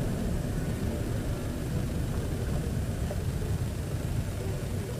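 Steady low rumble of a car driving, engine and road noise heard from inside the vehicle.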